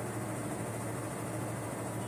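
Samsung front-load washing machine running mid-cycle, a steady machine hum with an even noise over it that does not change.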